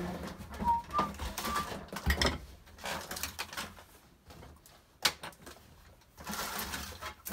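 Rummaging through a drawer of makeup: plastic packaging rustling and light clicks, with one sharp click about five seconds in. A few short whistled notes in the first two seconds.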